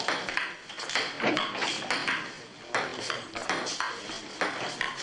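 Table tennis rally: the ball clicking quickly back and forth off the paddles and table, about three or four hits a second at an uneven pace.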